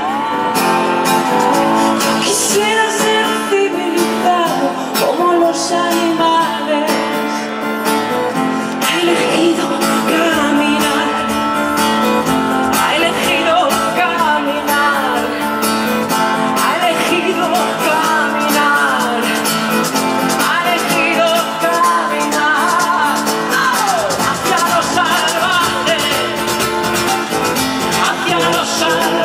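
A song with a singing voice over guitar and a steady percussion beat.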